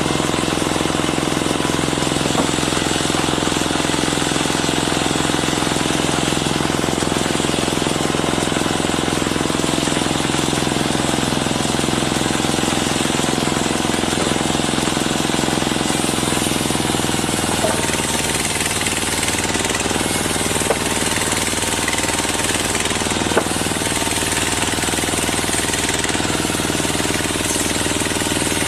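Briquette-making machine running, a loud, steady mechanical noise that changes slightly a little over halfway through, with a few sharp clicks.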